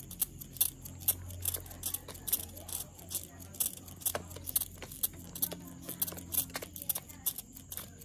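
Hand-held trigger spray bottle squirting water in quick repeated pumps, about three or four short hissing squirts a second, misting a caged hill myna to bathe it.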